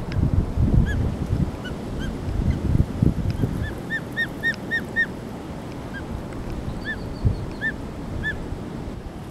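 Osprey calling: a run of five or six short, clear chirping whistles in quick succession about four seconds in, then three more spaced out near the end. Gusts of wind on the microphone in the first few seconds.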